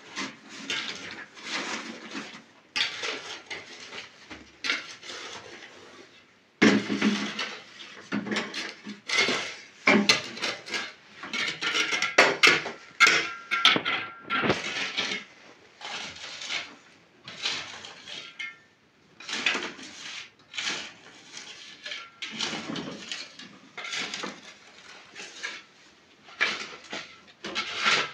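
Plates and pots being handled and set down on a shelf unit: irregular clinks, knocks and clatter of kitchenware, with a few brief ringing notes.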